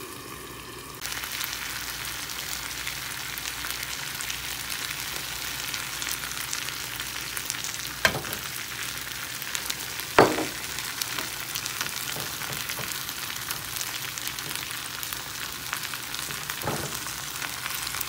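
Chicken and potato pieces sizzling as they fry in a pan. The sizzle grows louder about a second in. Three short knocks against the pan, the loudest about ten seconds in.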